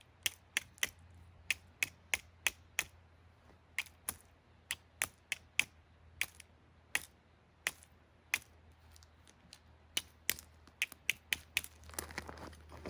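Wood fire crackling, with sharp irregular pops about once or twice a second. A soft rustling joins near the end.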